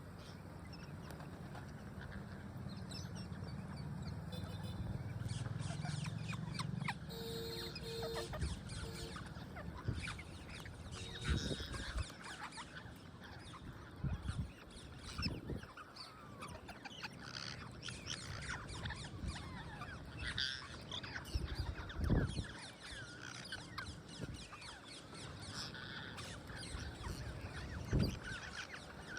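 Parrots calling with scattered short squawks and chirps while feeding, with many small clicks throughout and a couple of louder low thumps.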